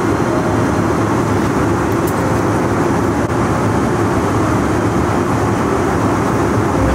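Steady engine and airflow noise of an Airbus A320-200, heard from inside the passenger cabin, with a faint steady tone over it.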